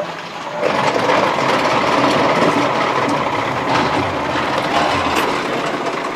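A row of brass prayer wheels rumbling and rattling as a hand spins them one after another, getting louder about half a second in.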